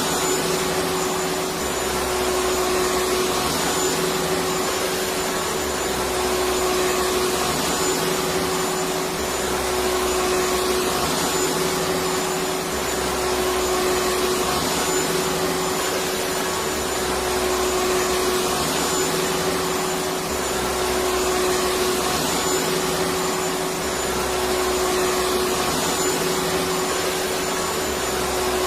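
Electric vacuum cleaner running continuously: an even rushing noise with a steady whine, and a low hum that swells and fades every few seconds.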